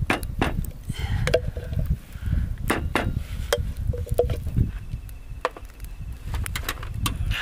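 Repeated sharp, irregular knocks and dull thuds of garlic and roasted whole spices being broken up by hand for a masala paste.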